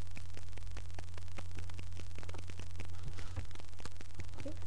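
Steady low electrical hum with dense crackling static from a webcam's built-in microphone.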